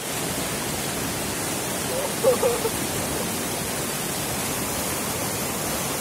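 Stream rushing over rocks in white-water rapids: a steady rush of water. A voice is heard briefly and faintly about two seconds in.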